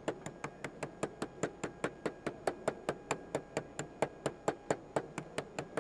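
Candied peanuts being crushed by pounding them on the table with a spoon: a fast, even run of knocks, about five a second, stopping just before the end.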